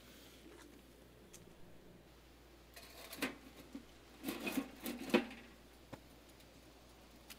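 A few faint clicks and knocks, one cluster about three seconds in and another between four and five seconds, over a low steady background.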